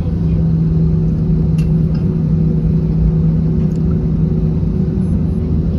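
Cabin noise of an Airbus A321 taxiing: a steady low rumble of the jet engines and rolling airframe, with a constant low drone and a fainter higher hum.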